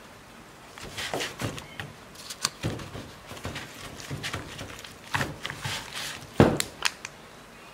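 Gloved hand kneading and turning raw chicken thighs with seasoning powder in a plastic bowl: irregular wet squelches and soft thumps, the loudest about six and a half seconds in.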